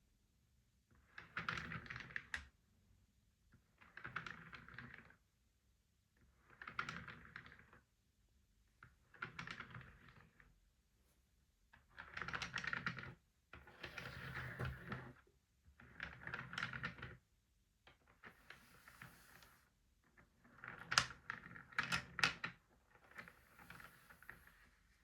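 Short bursts of quick tapping and clicking on a wooden shut-the-box game set, about every two to three seconds, with a few sharper clicks near the end.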